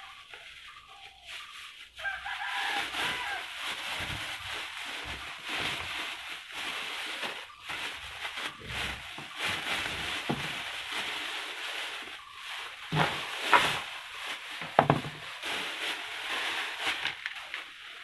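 Plastic bag rustling and crinkling as it is handled and pulled off a table fan's motor and base, with a few louder knocks after the middle.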